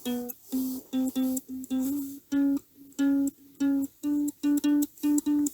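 A plucked string instrument picking a melody of separate single notes, about three a second, each note short and decaying quickly; the melody steps a little higher about two seconds in.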